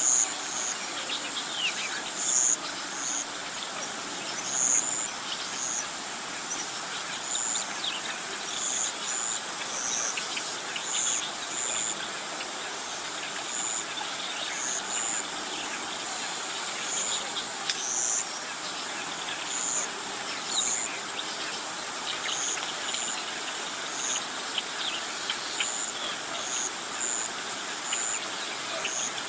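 Birds and insects chirping outdoors: short, high chirps recurring irregularly about once a second over a steady hiss.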